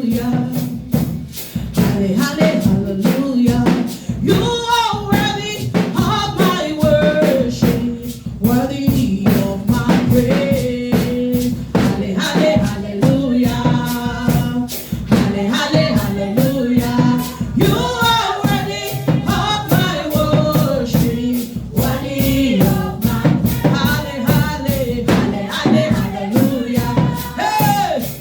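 Gospel worship music: sung vocal lines, with voices joining in, over a steady beat of drums and tambourine.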